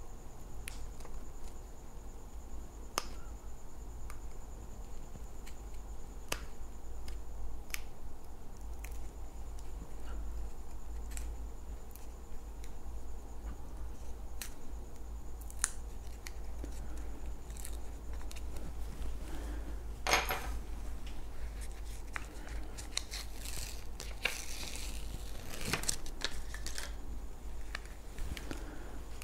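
Handling noises of an adhesive-backed foam pad being peeled, marked with a pen and pressed against a plastic wheel shell: scattered light clicks and taps, a louder snap about twenty seconds in, and a stretch of rustling and scraping near the end, over a low steady hum.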